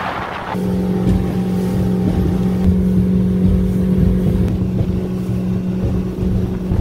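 The motor of a 20-foot Valco Bay Runner aluminum fishing boat running at a steady speed, a constant engine hum. There is a short rush of wind or water hiss in the first half second.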